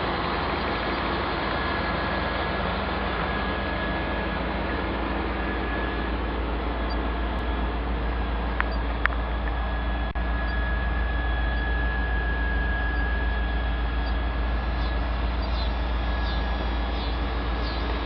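Truck car-audio system of twelve 12-inch Atlas subwoofers playing loud, steady deep bass.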